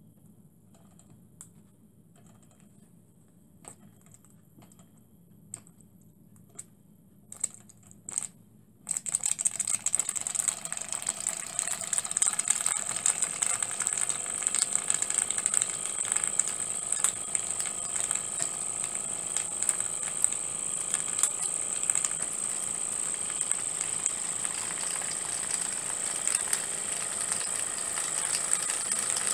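A small model horizontal mill steam engine: a few scattered clicks, then about nine seconds in it starts running, with a rapid, steady clatter of beats under a high hiss.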